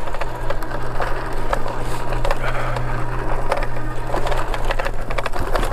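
Espin Sport e-bike rattling and clicking continually as it rides over a bumpy grass-and-dirt track, with a steady low hum underneath.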